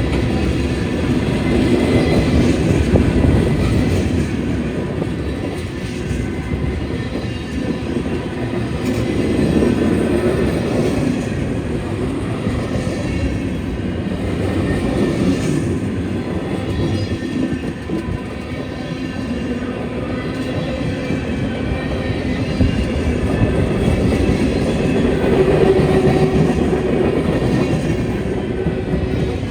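Freight train cars rolling past on the rails: a steady, continuous rumble of wheels on track, with a faint high wheel squeal.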